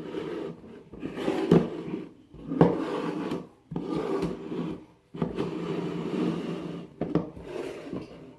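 Rubbing and scraping handling noise, broken by a few short knocks, as things are moved about close to the microphone.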